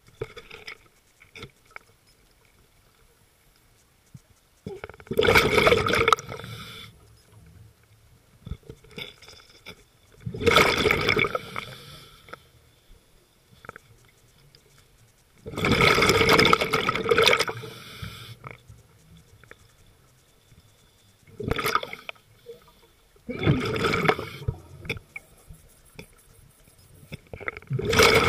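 Scuba diver's exhaled breath bubbling out of the regulator underwater: loud gurgling bursts of bubbles lasting a second or two, repeating about every five to six seconds with each breath, quieter between.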